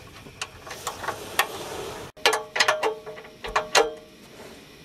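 Light metallic clinks as a nut and washers are threaded onto a muffler flange bolt by hand, then a socket ratchet clicking in short strokes, each click with a brief metallic ring, as the exhaust flange bolts are tightened.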